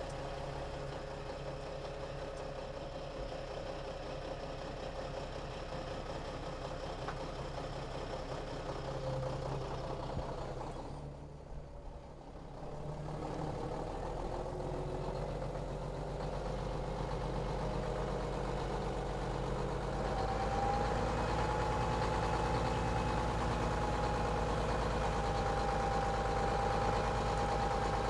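Truck engine idling steadily. It dips briefly about eleven seconds in, then comes back with a deeper, louder hum.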